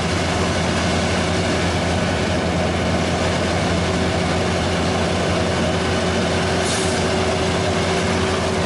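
Heavy diesel engine running steadily at a constant speed, with a brief hiss about six and a half seconds in.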